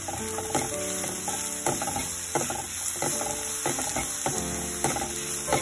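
Sliced mushrooms sizzling in hot oil in a nonstick frying pan while a spatula stirs them, with repeated sharp scrapes and taps of the spatula on the pan over a steady hiss.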